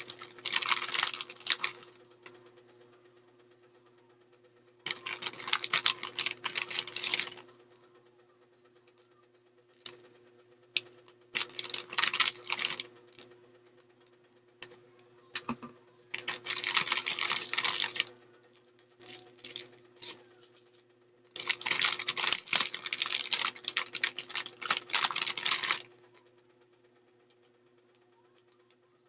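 Packaging being handled in bursts of crackly rustling and rapid clicking, each lasting one to four seconds with short pauses between, over a steady low hum.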